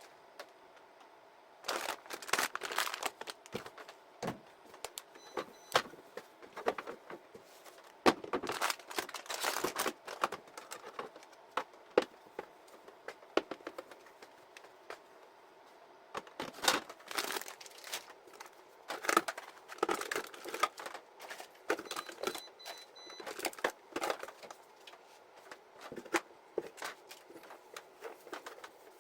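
Plastic food packaging and bags crinkling and rustling in irregular bursts, with sharp clicks and light knocks of containers being picked up and set down while a refrigerator is emptied and sorted.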